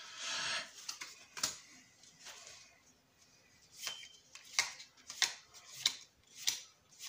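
Magic: The Gathering trading cards being flipped through by hand, each card slid off the front of the stack to the back with a short sharp snap. A soft rustle at the start, a couple of snaps in the first second and a half, a lull, then about one snap every two-thirds of a second from about four seconds in.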